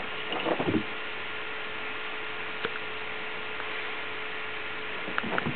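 Steady electrical hum and hiss, with a brief rustling scuffle and soft thumps about half a second in as a cat moves on a cloth-covered sofa, then a single faint tick later on.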